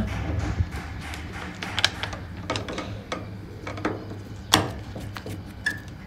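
Screwdriver backing screws out of a washing machine's plastic control-panel housing: scattered clicks and light scrapes, with a sharper click about four and a half seconds in.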